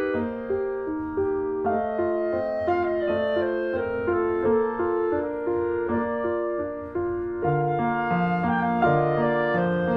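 Instrumental background music: a melody of held notes over an accompaniment, with a lower bass line coming in near the end.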